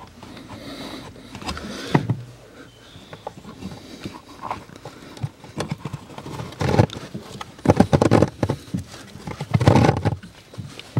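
A Peugeot 407's cabin air filter being pulled out of its plastic housing under the dashboard: plastic scraping, rustling and knocking. The noise is loudest in clusters in the second half, as the filter comes free.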